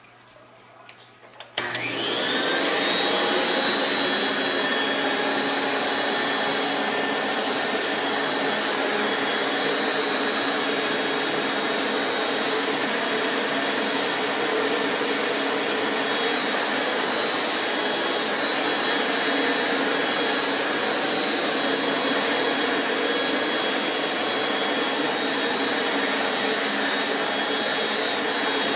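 1949 Electrolux Model XXX canister vacuum cleaner switched on with a click about a second and a half in. Its motor spins up with a rising whine, then runs steadily under a high whine while the floor tool is pushed over a hard floor.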